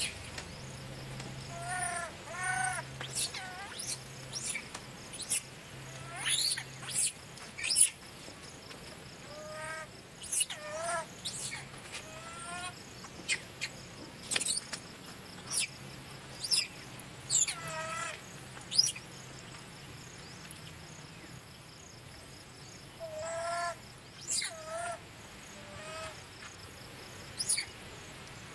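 Baby long-tailed macaque giving short cries that bend up and down, often two or three close together, typical of an infant begging to nurse. Sharp high chirps come between the cries.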